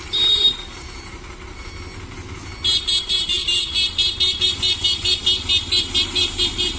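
High-pitched electronic beeping from a toy vehicle's sound module. One short beep comes at the start, and from about a third of the way in a rapid even string of beeps follows, about five a second, until the end.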